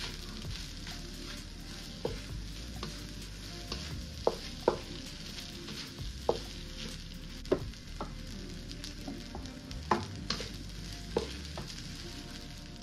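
Food sizzling as it fries in a hot pan, with a spatula stirring it and clacking against the pan now and then.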